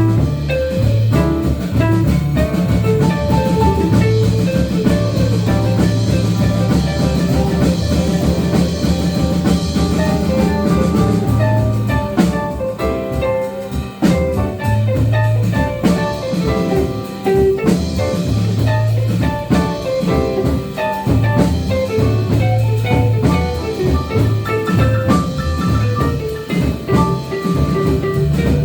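Live jazz band playing an instrumental passage with no singing: drum kit and bass keeping a swinging beat under a solo instrument.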